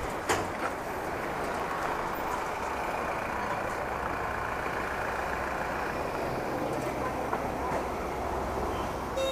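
Steady running noise of a motor vehicle, an even rumble and hiss that holds at one level throughout, with a short click just after the start.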